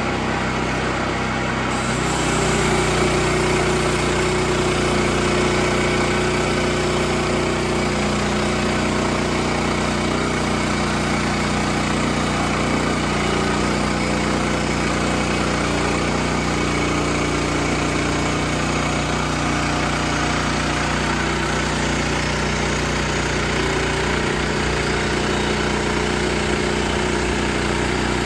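Sawmill engine running steadily while the blade cuts lengthwise through a log, its note shifting slightly about two seconds in and then holding steady.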